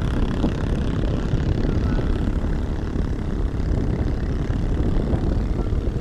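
Storm wind buffeting the microphone: a steady low rumble that swells and dips in gusts.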